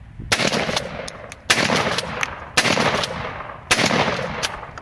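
Four shots from a 12-gauge pump-action shotgun, fired about a second apart, with the shorter clacks of the pump action between shots.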